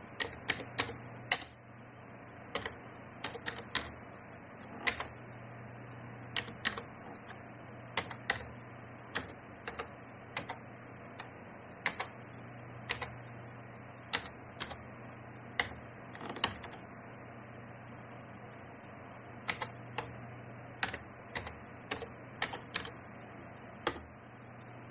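Computer keyboard being typed on slowly, single key clicks at an uneven pace, over a steady background hum.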